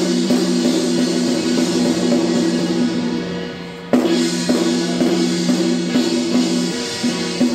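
Music with a drum beat over a held low chord, breaking off and starting again sharply about four seconds in.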